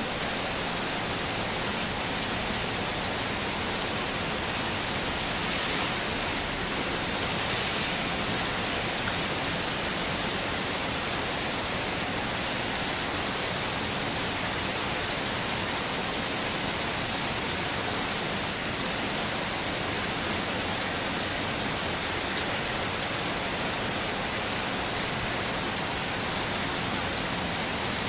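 Heavy rain falling steadily, a dense even hiss, with two brief dips in level along the way.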